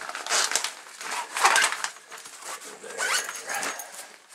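A nylon backpack being packed by hand: fabric rustling and scraping, with a few short zipper runs.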